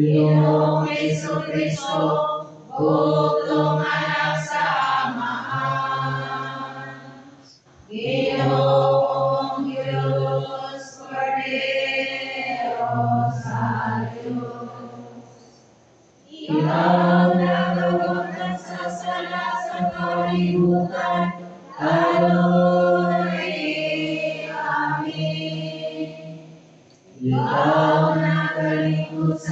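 A man's voice chanting a sung prayer into a microphone, in long phrases with held notes, pausing about 8, 16 and 27 seconds in.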